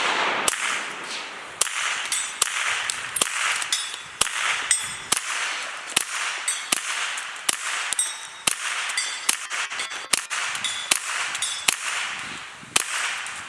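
A long string of gunshots fired in quick succession, roughly two to three a second, each crack followed by a short echo.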